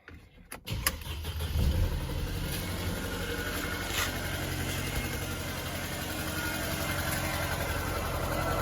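Mercedes-Benz M271 four-cylinder petrol engine starting under a second in, flaring briefly, then idling steadily with a fast rattling tap from the top of the engine: hydraulic lifters (valve lash adjusters) knocking.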